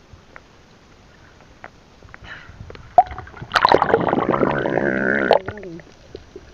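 Water splashing and gurgling as the microphone goes under water. A sharp click about three seconds in is followed by a loud burst of bubbling that lasts about two seconds.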